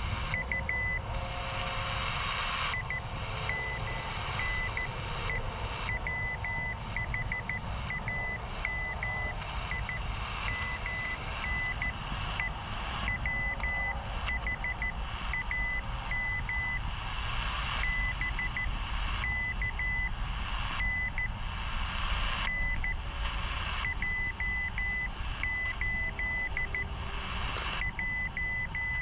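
Morse code (CW) signal received on a WebSDR shortwave receiver: a single high beeping tone keyed on and off in short and long marks, over a steady hiss of band noise and a low rumble.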